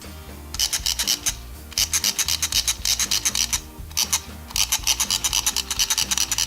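A hairbrush raked quickly through a doll's synthetic hair, a fast rasping scratch in three spells with short pauses between them. Soft background music runs underneath.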